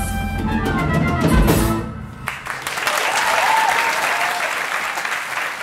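A band plays the song's closing chord with drum hits. About two seconds in, the music ends and the audience starts applauding, with a few cheers in the clapping.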